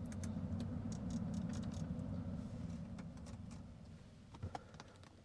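The car's cabin heater blower fan running with the ignition on, a low steady whir that winds down and fades out about four seconds in as it is turned down to low, with a few light clicks from the climate-control buttons.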